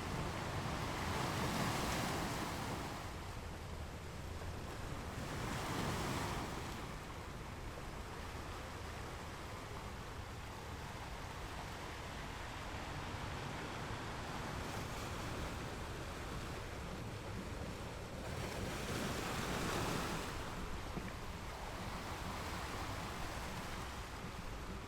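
Ocean waves: a steady rushing wash of surf that swells louder three times, about a second and a half in, around six seconds and near twenty seconds, over a constant low rumble.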